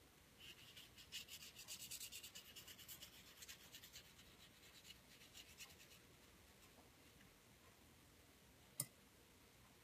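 Paintbrush rubbing quickly back and forth on textured drawing paper: a quiet, scratchy brushing of many fast strokes that dies away after about six seconds. A single sharp click near the end.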